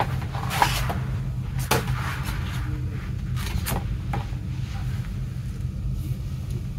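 Glossy cardboard CD packaging and a photo book being slid and set down on a table: several short rustles and light taps over a steady low hum.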